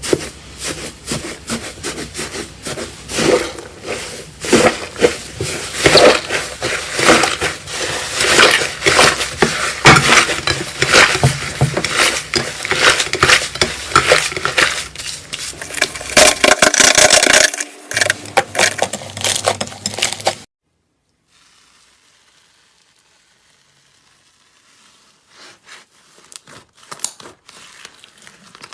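Slime being squeezed and worked by hand, a dense run of sticky clicks and crackles. It cuts off suddenly about two-thirds of the way through, and fainter clicking returns near the end.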